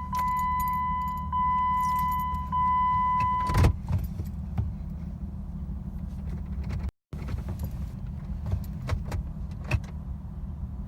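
A car's steady high warning tone sounds for about three and a half seconds and stops with a loud clunk. Light clicks and jingling keys follow over a low steady hum. The engine does not crank, which the owner puts down to the car not registering that it is in park.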